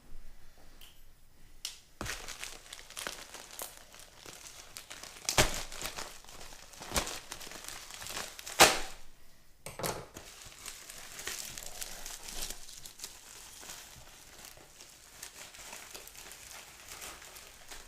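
Mail packaging being opened by hand: paper and plastic crinkling and rustling, with several sharp tearing rips, the loudest about eight and a half seconds in.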